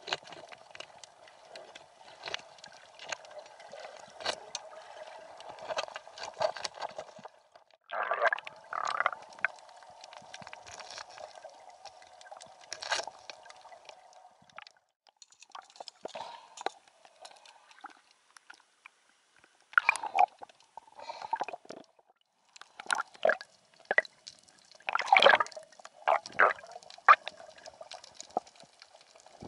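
Water heard through an underwater camera: a steady wash of water noise with frequent small clicks, and bubbling, gurgling bursts about eight seconds in, around twenty seconds, and several between about 23 and 27 seconds.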